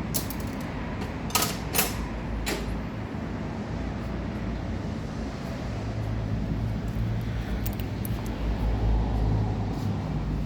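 Steady low mechanical hum, with a few sharp clicks and knocks in the first three seconds.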